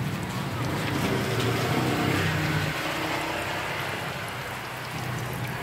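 Hot oil sizzling steadily in a frying pan as small batter-dipped crabs deep-fry. A low engine hum runs under it and fades out about halfway through.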